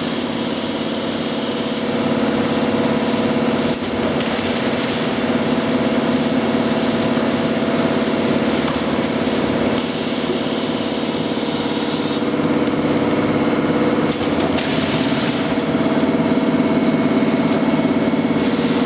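A 5 kg granulated-sugar packaging machine running with a steady mechanical hum. A hiss of air comes in at the start and again for about two seconds about ten seconds in.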